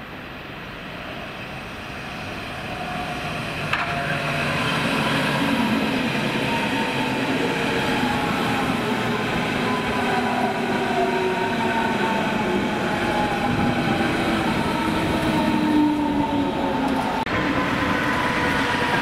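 Berlin S-Bahn electric multiple unit approaching and passing close by: a rising rumble of wheels on rail, with an electric motor whine that falls slowly in pitch. About 17 seconds in the sound changes sharply to a passing DB Class 101 electric locomotive.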